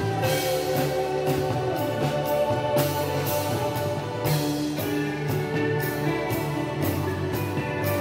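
Live band playing a song: sustained keyboard notes over a drum kit, with repeated cymbal crashes.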